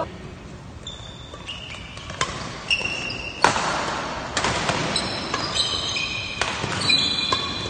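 Badminton rally: rackets striking the shuttlecock with sharp cracks about once a second, while players' shoes squeak briefly on the wooden court floor.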